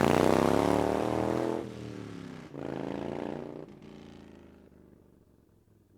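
Harley-Davidson V-twin motorcycle engine easing off with falling pitch, a brief rise in revs about two and a half seconds in, then fading away to a faint hum.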